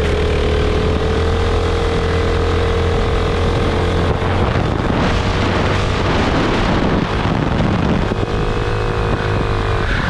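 Racing kart engine running hard at speed, heard from on board over a rush of air noise. The steady high engine note breaks into a rougher, noisier sound about four seconds in and settles back into a clear engine note near the end.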